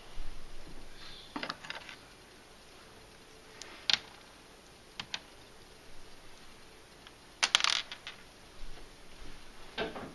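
A handful of light, sharp clicks and taps of small hard objects being handled, scattered and irregular; the loudest comes about four seconds in, with a quick cluster of clicks about seven and a half seconds in.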